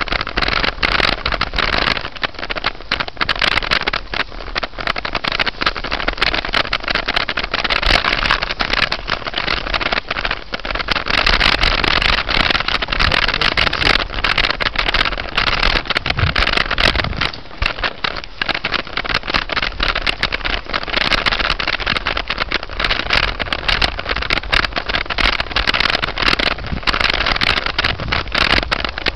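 Wind buffeting the microphone of a camera carried on a moving bicycle: a loud, gusting rush full of crackle, easing off briefly a few times.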